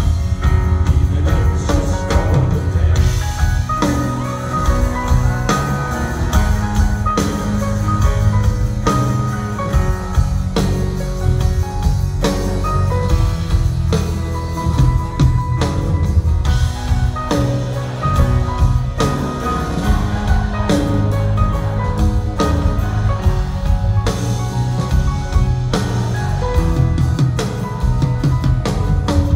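Live rock band playing an instrumental passage: a drum kit keeps a steady beat under sustained guitar and keyboard-like tones.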